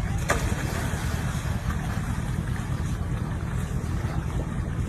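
Wind buffeting the microphone in a steady low rumble, over water splashing as a person wades in and dives; a sharp splash about a third of a second in.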